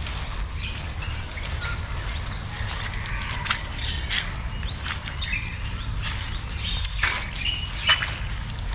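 Outdoor insect drone, high and steady, with scattered short bird chirps. Sharp crackling clicks come and go, the loudest about seven and eight seconds in, over a steady low rumble.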